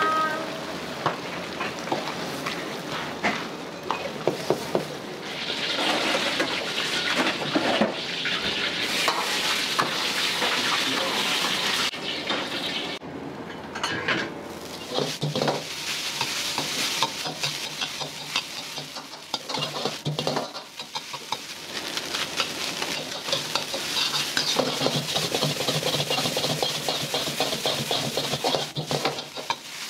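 A metal ladle stirring a simmering pan of meat sauce, then shrimp fried rice sizzling in a wok as a metal ladle scrapes and clinks against it many times.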